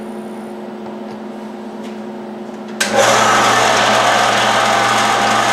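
Small vertical metal-cutting bandsaw: a low steady hum, then about three seconds in a sudden, much louder steady running noise as the saw cuts a short piece off a metal strip.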